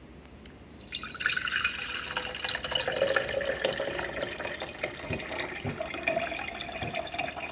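Strained cold brew coffee being poured into a storage jar, starting about a second in. It is a steady stream whose pitch rises slowly as the jar fills.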